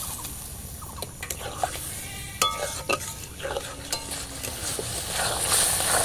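Water boiling and sizzling on hot fried spice paste in an aluminium kadai, with a metal spatula clicking and scraping against the pan as the masala is stirred. The bubbling hiss grows stronger near the end as the mixture comes to a hard boil.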